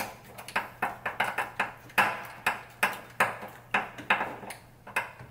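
A run of light metallic clinks with a little ring, about two to three a second, from metal parts and tools knocking together while a differential is worked into place under a car.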